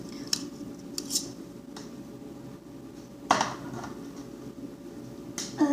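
A few light clicks, then a louder brief clatter about three seconds in: magnets and papers being handled and set onto a refrigerator door.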